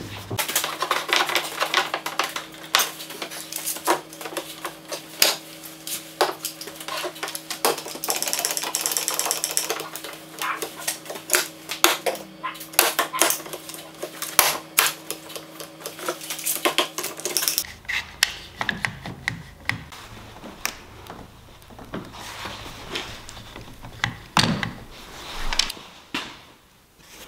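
Irwin one-handed bar clamps being ratcheted tight on curved ash segments: rapid runs of ratchet clicks mixed with knocks and clatter of the clamps and wood pieces. A steady low hum sits underneath and stops about two-thirds of the way through.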